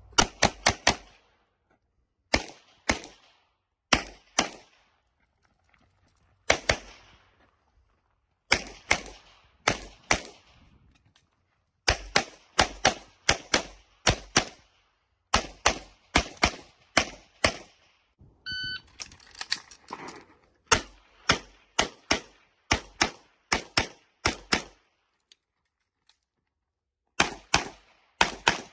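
Handgun shots fired rapidly, mostly in quick pairs, in several strings separated by short pauses while the shooter works through a practical-shooting stage. A short beep sounds about two-thirds of the way through, and a new run of shots follows it.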